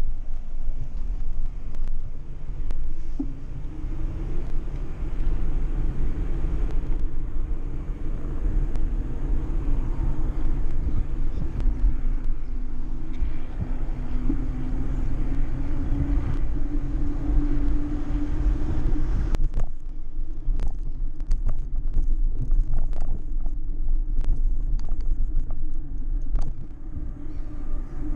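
Steady low rumble of wind and road noise on a camera riding on a moving bicycle, with a hum that slowly rises in pitch for several seconds in the middle. About two thirds of the way through, a run of sharp clicks and rattles begins.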